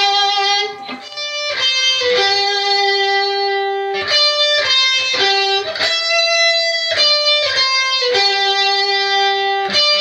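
Gibson SG electric guitar played through distortion, picking a melodic intro riff: held single notes joined by short quick ones, the phrase repeating about every two seconds.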